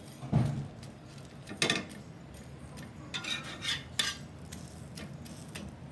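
Steel spatula scraping and knocking against a dosa tawa while a dosa is lifted and folded: a handful of separate scrapes and clacks, the loudest about half a second in and again near two seconds, with a quicker cluster around three to four seconds.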